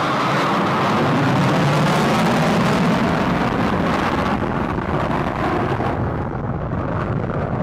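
Jet noise from a military jet flying past the crowd: a loud, steady rumble whose higher part fades away over the last few seconds.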